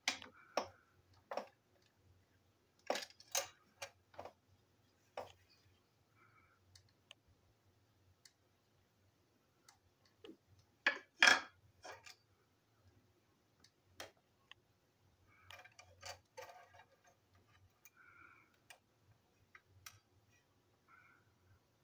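Parts of a toy train engine being handled and pulled apart: scattered clicks and taps of small parts against each other and the tabletop, with the loudest knocks about eleven seconds in.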